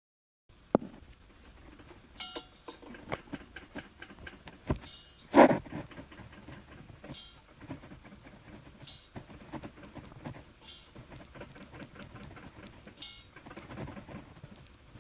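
Mitsubishi 360 ME24 engine's fan being rocked by hand, giving an irregular light metallic clatter with one louder clack about five seconds in. It is play in the fan that the owner suspects may be behind the engine's piston-knock noise.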